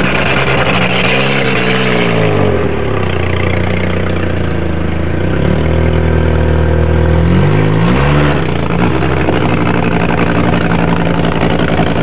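Car engine revving high while the car is stuck on a snow-covered hill with its wheels spinning. The engine pitch drops about two seconds in, holds lower, then swings up and back down near eight seconds before steadying again.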